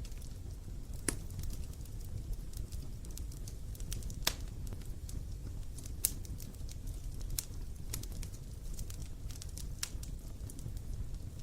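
Wood fire crackling: scattered sharp pops, three louder ones about one, four and six seconds in, over a steady low rumble.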